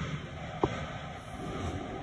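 Steady low rumble and hiss inside a New York subway car on the 7 line standing at a station, with its ventilation running. A single short click comes about half a second in.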